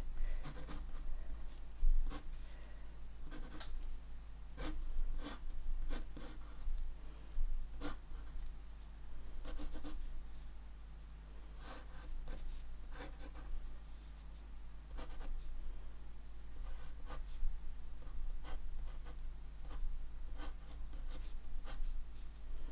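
Drawing on paper: short, irregularly spaced scratching strokes of a drawing tip across the paper, over a faint steady hum.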